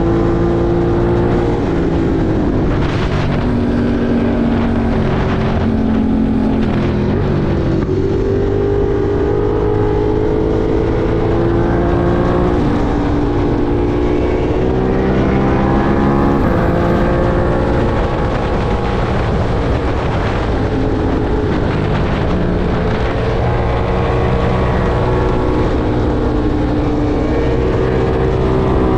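Ducati Monster 1200 R's V-twin engine under way, its note rising and falling with the throttle and gear changes while riding canyon bends.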